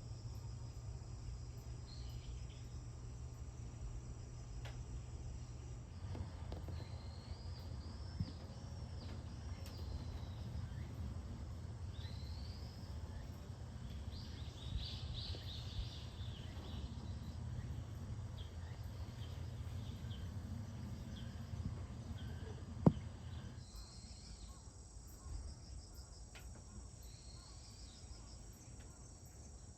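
Crickets or other insects trilling steadily and high-pitched, with birds chirping through the middle. A single sharp click about three-quarters of the way through.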